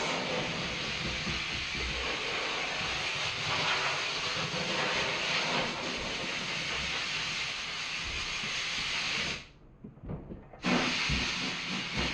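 Media blast cabinet's air gun hissing steadily as compressed air and abrasive blast a part. About nine seconds in it cuts off for about a second, then starts again.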